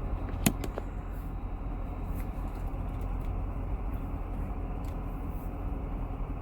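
C7 Corvette's 6.2-litre V8 running steadily at low speed, a low rumble heard from inside the cabin, with a sharp click about half a second in.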